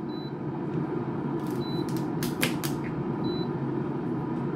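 Touch-control panel of a Bella Pro Series air fryer giving three short high beeps about a second and a half apart as its buttons are pressed after the cooking cycle has ended. Under them are a few light taps and the steady whir of the air fryer's fan.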